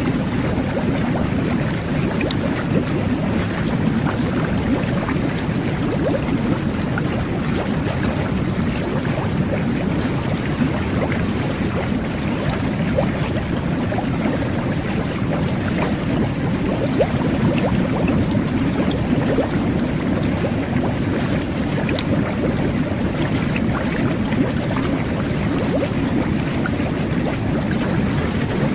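Jet bath (whirlpool tub) running: water churning and bubbling under the jets in a steady, unbroken low rush.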